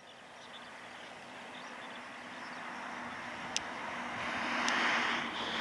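Boeing 757 jet engines on final approach, a broad rushing noise that grows steadily louder as the airliner draws nearer. Two brief sharp ticks sound about halfway through and about a second later.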